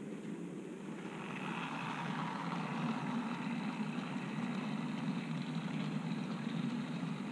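OO gauge model train running along the track: a steady rumble of wheels on rails and the motor, growing louder about a second in and then holding steady.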